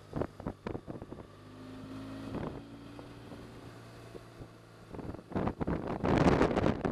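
Wind buffeting the camera microphone in gusts over the steady low drone of a BMW touring motorcycle's engine under way. The gusts come in short blasts in the first second and grow heavier and louder from about five seconds in.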